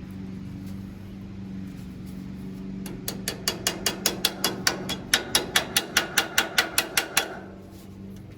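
A quick, even run of about twenty light metal-on-metal hammer taps, around five a second, tapping a cotter pin into place on the tractor's PTO lever linkage. The taps start about three seconds in and stop about seven seconds in.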